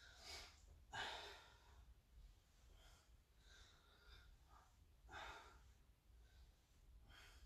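Faint breaths out from a man exercising, a few short exhalations with long quiet gaps between them.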